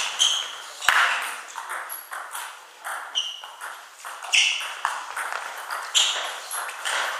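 Table tennis ball in a fast rally, clicking off the rubber bats and bouncing on the table, one to two sharp ringing pings a second.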